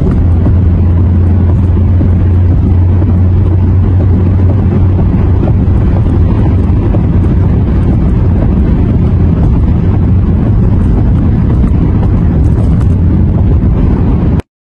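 Steady low drone of a car being driven at road speed, heard from inside the cabin; it cuts off suddenly near the end.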